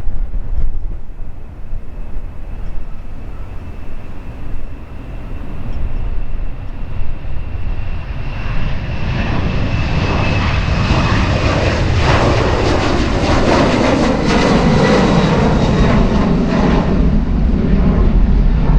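Airliner jet engines: a high whine first, then a broad rumble that swells over several seconds and stays loud near the end as the aircraft passes, with wind buffeting the microphone.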